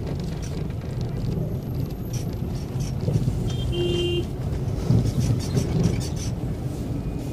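Road traffic heard from inside a moving vehicle: a steady low engine and road rumble, with a short horn beep about four seconds in.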